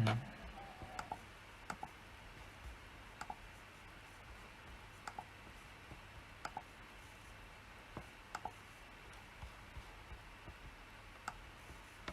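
A dull thump right at the start, then scattered single and paired clicks from a PC's mouse and keyboard, one every second or two.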